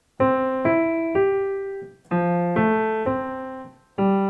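Piano playing a chord progression as arpeggios: each chord's three notes are played one after another going up and left to ring. Two chords are played, about two seconds each, and a third starts near the end.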